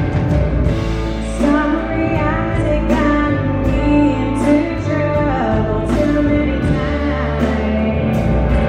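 Live blues-rock band playing, with a woman singing the lead vocal from about a second and a half in over guitar and drums.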